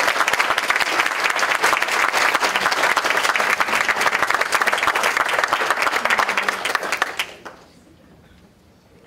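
Room of people applauding, a dense patter of many hands clapping that dies away about seven seconds in.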